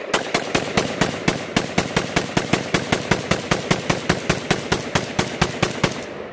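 Polish WBP Beryl-style AK-47 semi-automatic rifle in 7.62x39mm, fitted with a Beryl Archer-style muzzle brake, fired in a rapid string of about six shots a second. The shooting stops about six seconds in.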